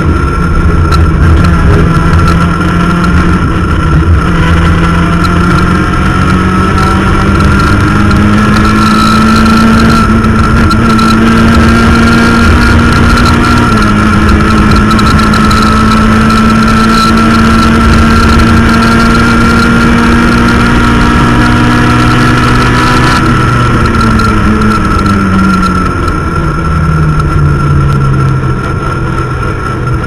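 Rally car engine at high revs, heard from inside the cabin. The revs climb in fifth gear, then step down with an upshift into sixth about 14 seconds in and hold steady, before falling away over the last several seconds. A steady high whine runs above the engine throughout.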